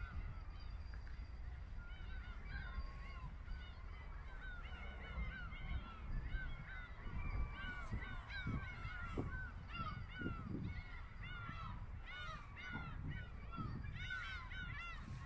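A large flock of birds calling together: many short, overlapping, honk-like arched calls that grow denser in the second half.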